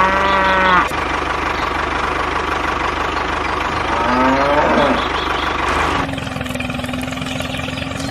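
A motor running steadily with a fast low rhythmic knock. Two pitched, drawn-out calls sound over it, one at the start and one about four seconds in. About six seconds in it changes to a steady hum.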